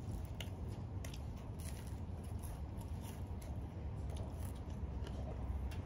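Crisp, charred thin pizza crust crunching as it is eaten: a string of small sharp crackles over a steady low hum.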